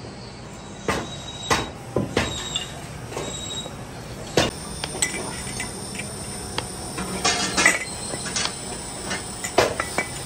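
Irregular metallic clanks and clinks as metal casting moulds and small cast sleeves are handled and set down, some knocks ringing briefly.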